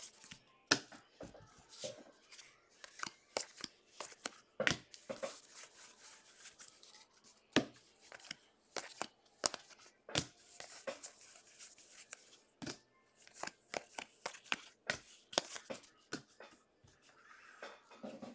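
Stack of 2021 Bowman baseball trading cards being thumbed through in the hand: irregular sliding swishes and sharp snaps as each card is flicked from the front of the pile to the back.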